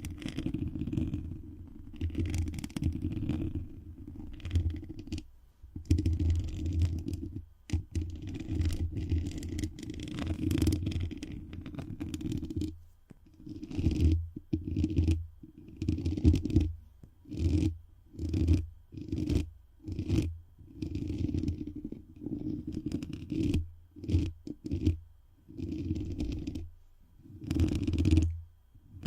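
Microphone being rubbed as an ASMR friction trigger: muffled, bass-heavy scraping strokes, near-continuous at first, then separate strokes about once a second in the second half.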